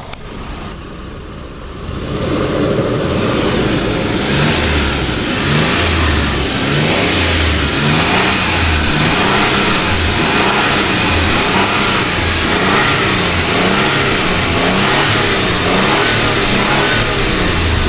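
Toyota Land Cruiser Prado's 4.0-litre V6 engine revving, loud from about two seconds in, its pitch rising and falling again and again as the throttle is blipped. The throttle response is quick on an engine with nearly 400,000 km on it.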